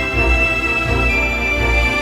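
Background music: held notes over a steady low bass.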